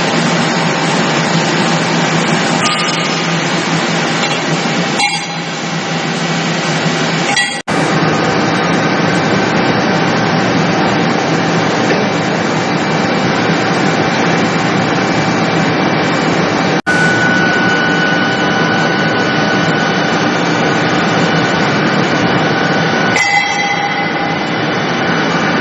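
Steady, loud machinery noise with faint clinks, cut off abruptly for an instant twice, about a third of the way in and again past the middle.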